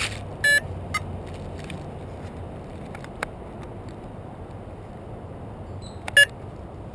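Two short electronic beeps from the quadcopter sitting on the ground, one about half a second in and a louder one near the end, with a few faint clicks between.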